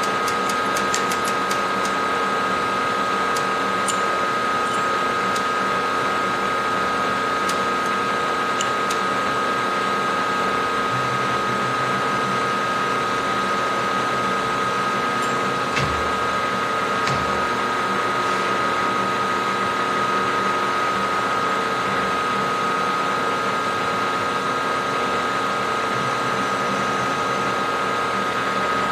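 Milling machine spindle running steadily with a high whine while an end mill cuts into a metal block, with a few sharp ticks of flying chips in the first few seconds and a couple of dull knocks about halfway through.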